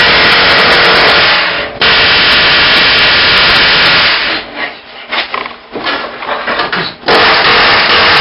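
A power cutting tool cutting through a car's steel frame rail, loud and rough. It breaks off for a moment about two seconds in, and after about four seconds it runs in short, quieter spurts before coming back loud and steady near the end.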